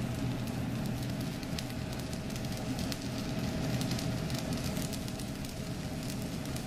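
Arc welding with a Sidewinder stick electrode burning its way along a steel plate: a steady crackling sizzle over a low, even hum.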